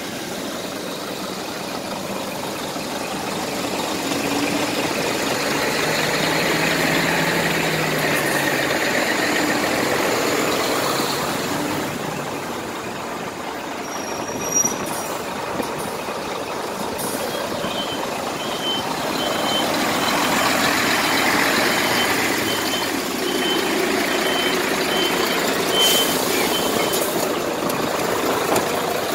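Scania R420 tractor unit's diesel engine running at a standstill. Over the second half, a vehicle's reversing alarm beeps steadily.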